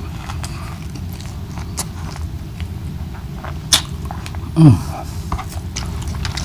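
Close-up chewing of a mouthful of food, with soft wet mouth clicks and smacks. About three-quarters of the way in comes a short hum of the voice, falling in pitch.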